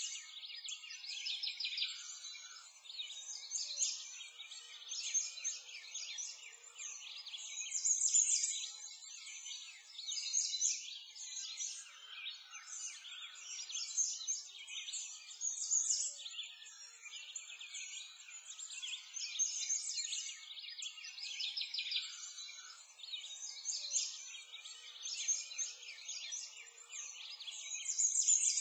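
Many birds chirping and singing together in a dense, unbroken chorus of high chirps and trills, with nothing heard at low pitch.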